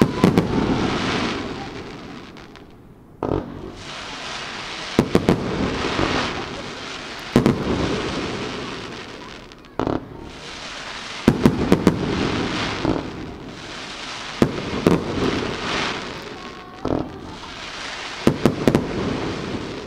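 Sato Enka aerial fireworks going off in a rapid string: sharp bangs every one to two seconds, some in quick clusters of two or three. Each bang trails off over a couple of seconds.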